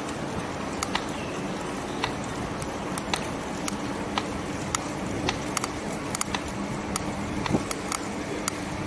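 E-bike riding along a city street: steady road and wind noise with a faint low hum, broken by sharp irregular clicks about one to two a second, coming more often near the end.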